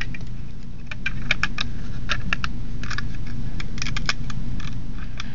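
Plastic Lego bricks clicking and clattering as they are handled and pressed together by hand: a loose string of small, sharp clicks through the middle few seconds.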